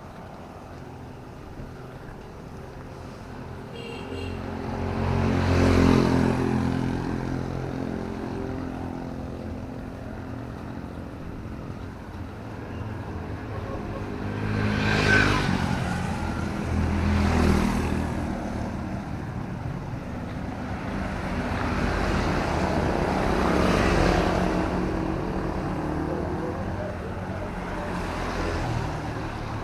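Motor vehicles passing one after another on a road in drizzling rain. Engine and tyre noise swells and fades about four times, loudest around six and fifteen seconds in, over a steady background of traffic and rain.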